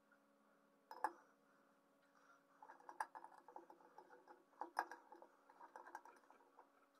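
Metal alligator clip and copper wire being handled at a glass jar: a few sharp clicks, about one, three and five seconds in, among lighter ticking rattles between them.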